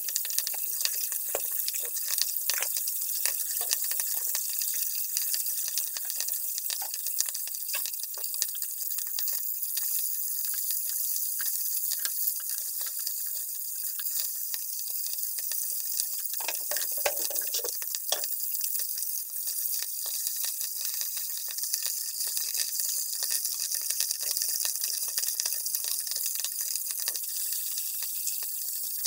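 Pieces of turmeric-coated dhela fish shallow-frying in hot oil in a nonstick pan, sizzling steadily with a constant crackle of small pops. Just past halfway there is a brief scrape as a spatula turns the pieces.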